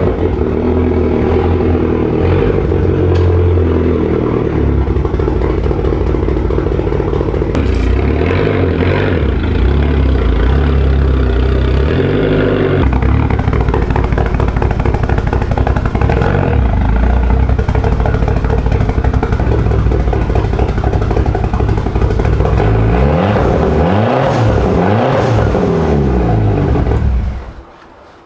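Car engine running loudly, its revs rising and falling repeatedly, then cutting off just before the end.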